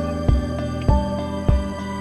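Background music with a steady beat, a low thump about every 0.6 seconds, under sustained mellow notes.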